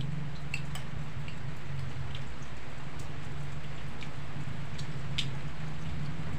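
Steady rain falling, an even hiss with a constant low rumble under it, and a few sharp light clicks over it.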